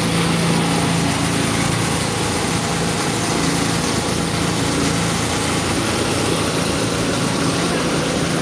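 Water tanker truck's engine running steadily, a constant hum with no change in speed.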